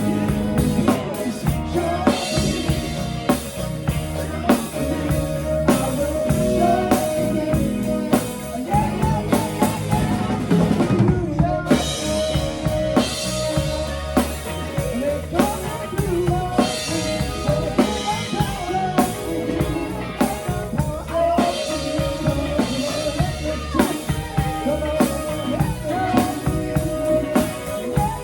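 Band music driven by a drum kit, with bass drum, snare and rimshot hits on a steady beat under bass and sustained melodic instrument lines.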